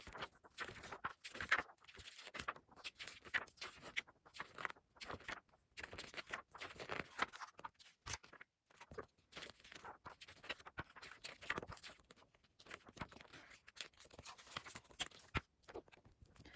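Magazine pages being flipped one after another: a faint, continuous run of short paper rustles and flaps.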